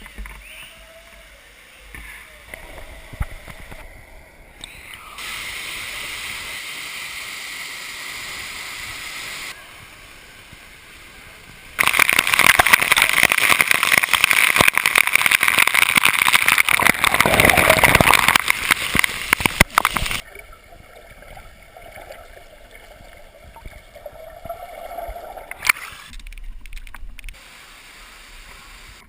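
Rushing, splashing water of a waterfall: a dense, loud hiss for about eight seconds in the middle, with quieter outdoor noise in the shorter shots around it.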